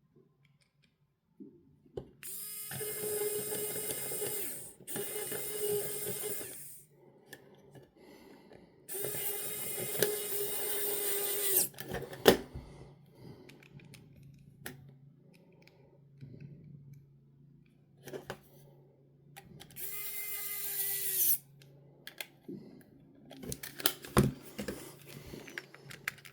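A small electric motor whirs in four short bursts of about two seconds each, each rising briefly in pitch as it spins up, with a few sharp clicks in between.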